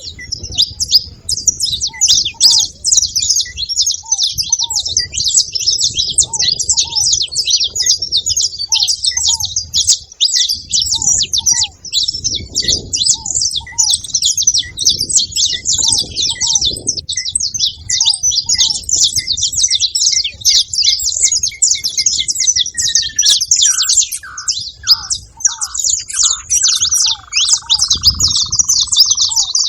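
A flock of saffron finches chirping and twittering densely and without a break. Behind it, another short call repeats about twice a second, and over the last several seconds a series of notes falls steadily in pitch.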